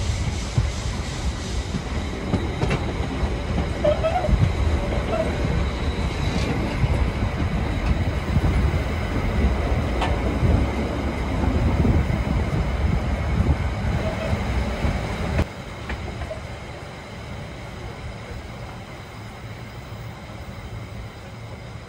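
A train running on the rails, a loud rumble with wheels clicking over the rail joints. About fifteen seconds in it cuts off suddenly to a quieter steady background.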